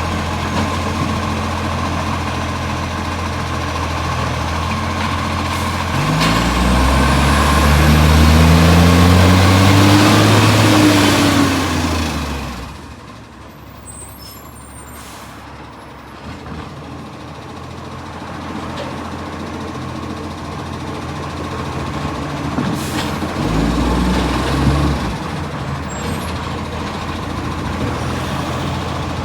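Garbage truck diesel engine with an exhaust leak, idling and then revving up for about six seconds before falling back quieter. It revs briefly again near the end.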